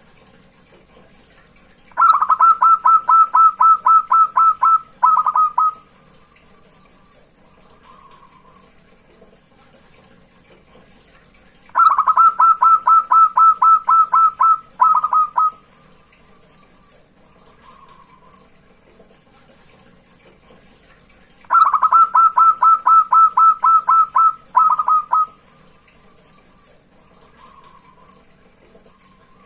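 Zebra dove (perkutut) singing its song three times, about ten seconds apart: each phrase is a quick run of a dozen or so clipped coos, a short break, then a few more. Faint single soft coos come between the phrases.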